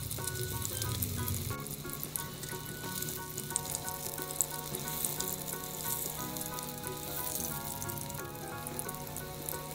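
Sunflower oil sizzling and crackling steadily around batter pirozhki shallow-frying in a frying pan.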